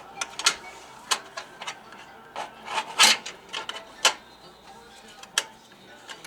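Scattered clicks and knocks of hard computer parts being handled and set in place in a PC case. The loudest is a sharp knock about three seconds in.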